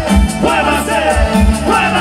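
A live cumbia band playing through a concert PA: a lead voice singing over drums, bass and sustained keyboard chords.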